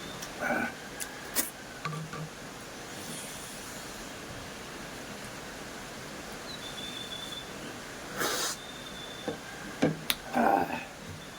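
Eating sounds of a person chewing a rice meal: a few short smacks and clicks about half a second in and again near the end, over a steady background hiss.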